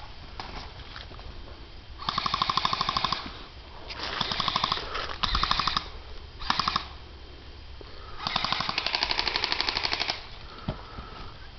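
Airsoft guns firing on full auto: five bursts of rapid clicking shots, the first and last each about two seconds long, with shorter bursts between.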